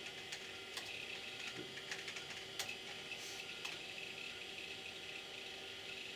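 Old 486 desktop computer running with a steady whir and hum. A run of irregular sharp clicks, about a dozen, comes in the first four seconds and then stops.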